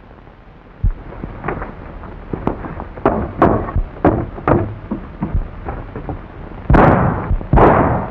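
Gunfire in a street shootout: single shots at first, coming faster, then two heavier blasts near the end. The shots come from revolvers.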